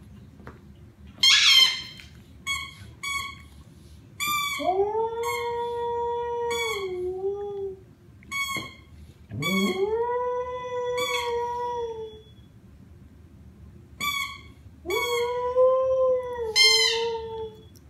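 Samoyed dog howling three times, each long howl rising at the start and dropping at the end, while a squeaky toy under its paw gives many short high squeaks in between and during the howls.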